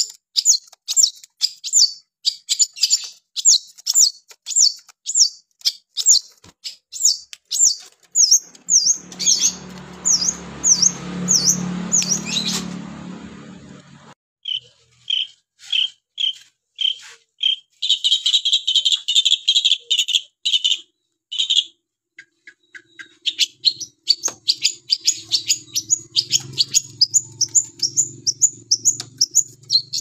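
Caged long-tailed shrike singing hard: fast runs of sharp, high, downward-slurred chirps at about three a second. About halfway through the chirping gives way to a stretch of lower, different notes before the fast chirps return. A low rumble rises and fades between about nine and fourteen seconds in.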